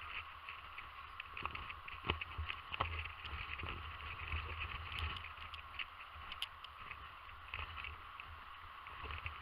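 Faint beach ambience: a low wind rumble with a steady hiss and scattered light taps.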